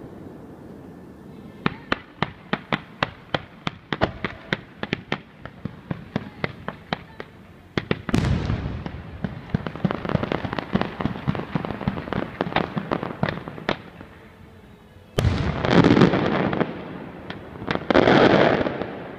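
Aerial fireworks: a quick run of sharp bangs, about three a second, starting about two seconds in, then heavier shell bursts with dense crackling. Two loud booming blasts near the end are the loudest of all.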